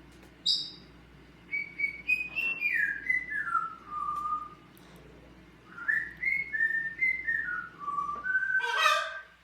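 Pet parrot whistling: a brief high chirp, then a tune of short notes stepping down in pitch, whistled twice, and a harsher call near the end.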